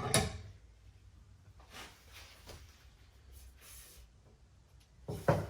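A sharp knock, then faint rustling and light clatter, and another knock near the end: tools and parts being handled and set down on a workbench.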